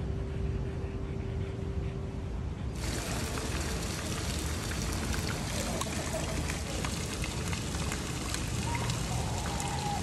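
Water trickling and pouring steadily, with a faint steady hum underneath at first; about three seconds in it abruptly becomes a brighter, fuller hiss.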